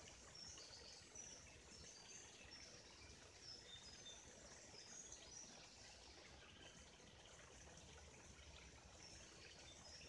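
Faint forest ambience: scattered short, high bird chirps, busiest in the first half and again near the end, over the steady faint rush of a running stream.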